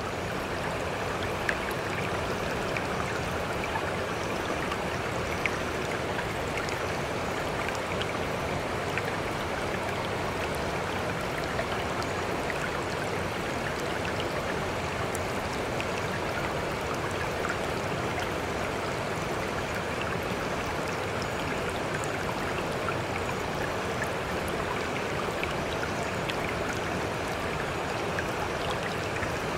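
Steady rush of running water from a babbling stream, with small drips and splashes scattered through it.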